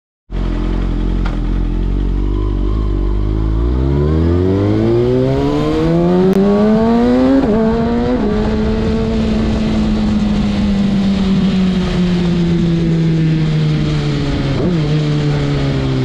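Kawasaki ZX-6R 636 inline-four running through a Carbox racing exhaust, heard from the rider's seat. It starts at low revs, climbs steadily in pitch for a few seconds, drops sharply twice in quick succession around the middle as it is shifted up, then holds and slowly falls while cruising, with one brief blip near the end.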